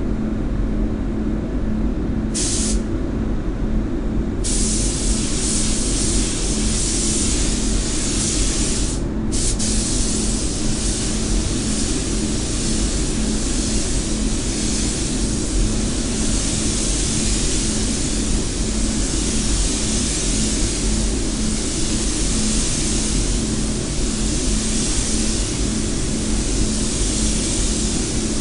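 Air-fed paint spray gun hissing as it sprays: a short burst about two seconds in, then long passes from about four seconds on with a brief break near nine seconds, over a steady low hum.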